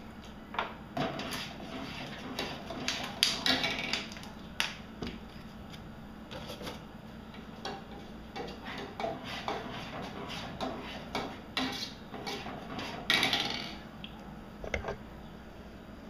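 Metal spoon stirring milk in a stainless steel milk pot, with irregular clinks and scrapes against the pot's sides and a louder scrape about thirteen seconds in. This is the stirring of milk with vinegar to curdle out the milk protein.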